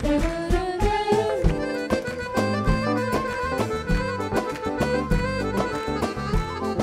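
Arabic ensemble music in an instrumental passage: a Roland RS-50 keyboard melody over hand-drum and frame-drum beats.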